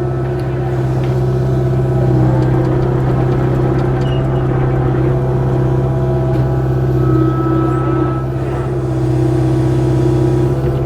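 Kubota KX057-4 mini excavator's diesel engine running at a steady working speed while the machine digs and moves dirt, with a few faint clicks.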